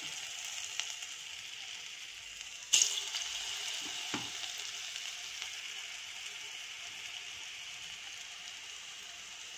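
Battered cauliflower balls deep-frying in hot oil in a kadai, a steady sizzle. About three seconds in, a sudden louder hiss flares as a second ball is dropped into the oil.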